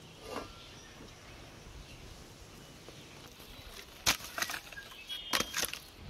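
Bowls knocking and clinking: one sharp clatter about four seconds in and a quick run of clinks with a short ring near the end.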